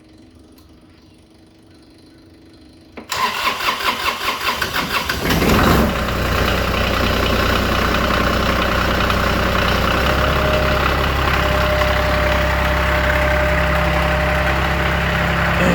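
Kioti CS2410 tractor's Subaru diesel engine cranked by its starter about three seconds in, catching after about two seconds of even cranking and settling into a steady idle. It is a cool-morning start that goes readily now that all three starter relays have been replaced.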